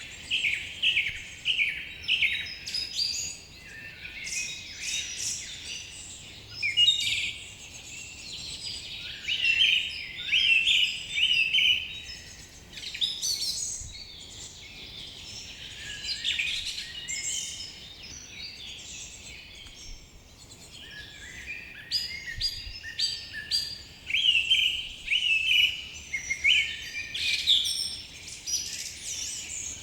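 Many songbirds calling and singing at once in a forest, a dense chorus of chirps and trills over a faint steady background hiss.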